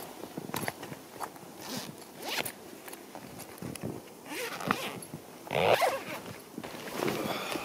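Zipper on a large canvas bag being pulled open in several rasping strokes, with the canvas rustling.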